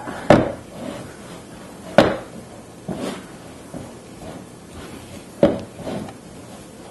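Mixing bowl knocking against the countertop while a stiff sausage-and-Bisquick dough is worked by hand: three sharp knocks a couple of seconds apart, with fainter ones between.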